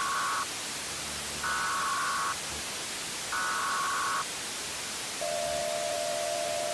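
Emergency Alert System broadcast tones over steady static hiss: three short data-burst header tones, each about a second long with a second's gap between them, then a single steady lower alert tone that starts about five seconds in and holds.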